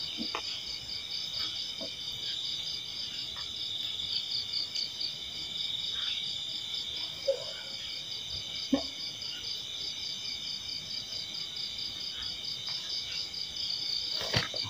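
Steady chorus of insects: several high trilling tones, one of them pulsing rapidly, with a couple of faint knocks, one near the end.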